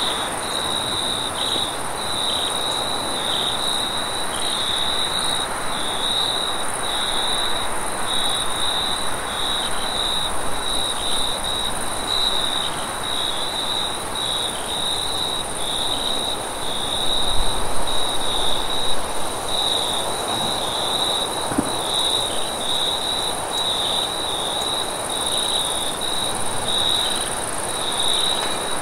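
Crickets chirping in a steady high-pitched trill, broken by short regular gaps, over a steady wind rush that swells briefly past the middle.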